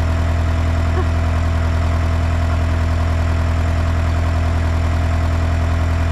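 Komatsu D31 bulldozer's diesel engine running steadily at idle, a strong low hum with no change in speed.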